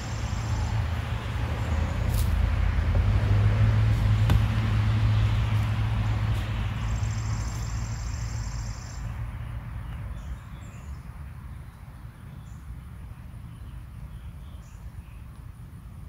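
A vehicle passing by: its low engine and tyre rumble swells to a peak about four seconds in, then fades away by about ten seconds in. A high, rapidly pulsing trill sounds briefly about seven seconds in, and small bird chirps come through once the traffic has faded.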